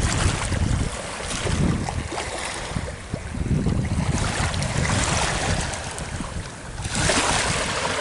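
Wind buffeting the microphone in gusts over the wash of small bay waves on a rocky shoreline, with a brighter hiss of water from about seven seconds in.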